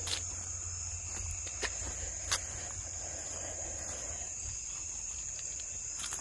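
Steady, high-pitched chorus of insects, with a few light clicks, the sharpest a little over two seconds in.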